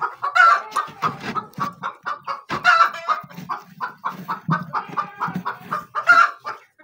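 Hen clucking in a quick run of short calls, several a second, with a few louder calls mixed in.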